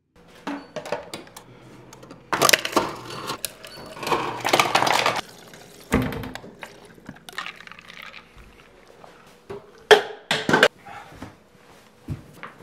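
Refrigerator door dispenser running into a glass held against its lever, in two loud rushes with rattly clinks, followed by a thunk about six seconds in and sharp clicks and knocks near the end.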